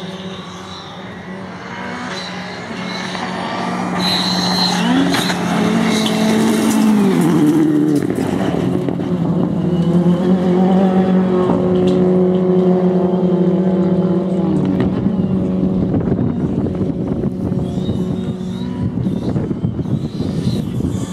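Ford Fiesta R5 rally car's turbocharged four-cylinder engine running hard on a stage, growing louder from about four seconds in as the car comes closer. Its pitch steps down with gear changes about seven and fifteen seconds in.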